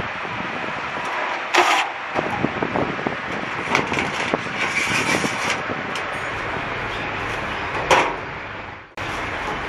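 Steady workshop noise with scattered clicks and a few sharp metal knocks, the loudest about a second and a half in and again near the end, then a brief drop-out.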